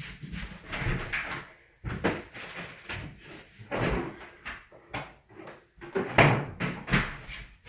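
Kitchen cupboard doors opening and shutting, with a string of knocks and bumps as ingredients are put away; two louder bangs near the end.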